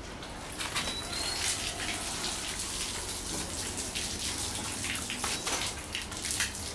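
Water from a hose spraying and splashing onto a concrete pig-pen floor. It comes on and grows louder about half a second in, then runs on with scattered spattering.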